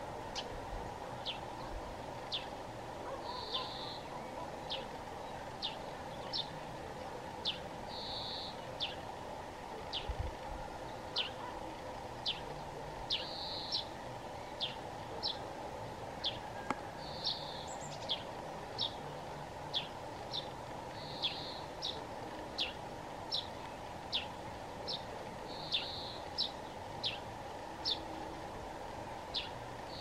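Birds calling in spring woodland: a long, regular series of short, high-pitched notes falling in pitch, about one or two a second, with a buzzier note every four to five seconds, over a steady background hum.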